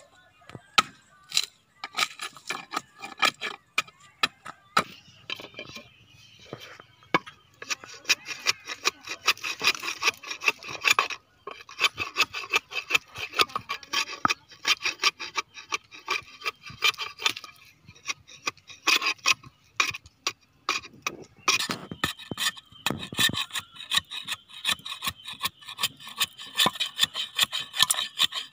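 Large knife blade shaving down the edge of a wooden board: a fast run of short scraping strokes, with brief pauses between runs.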